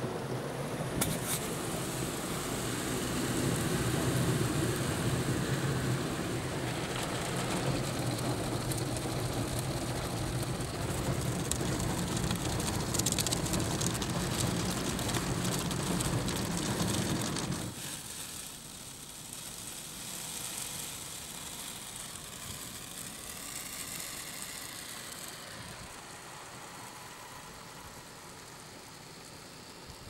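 Automatic car wash heard from inside the car's cabin: spinning cloth brushes and water scrubbing and rushing over the windows and body, with a steady low hum underneath. About 18 seconds in the noise drops suddenly to a quieter steady hiss.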